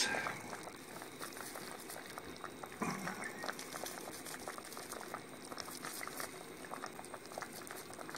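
Chicken stew simmering in a cast iron potjie pot, the sauce bubbling with many small pops and ticks. A brief low sound about three seconds in.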